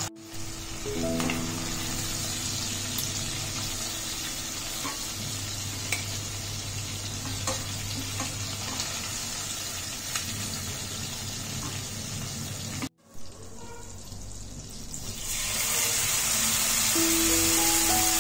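Prawns sizzling as they fry in oil in a stainless steel pan, with a few light clicks of a metal spatula, under background music with sustained notes. The sound drops out briefly about 13 seconds in, then a louder sizzle of shredded cabbage frying in oil comes in near the end.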